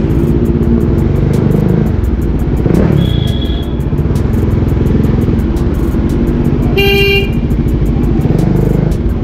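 Sport motorcycle engine running at low speed in slow street traffic. A short high-pitched horn toot comes about three seconds in, and a louder, lower horn blast about seven seconds in.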